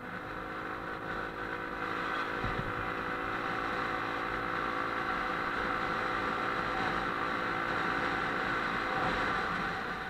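Motorbike engine running while riding, getting louder over the first two seconds and then holding a steady note, under rushing wind and road noise. A single low thump comes about two and a half seconds in.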